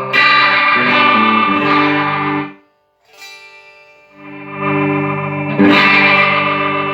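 Electric guitar played through a Line 6 HD500X multi-effects pedalboard, which is now passing signal after its repair. A run of notes and chords stops about two and a half seconds in. After a short gap a chord swells in and rings, and it is struck again near the end.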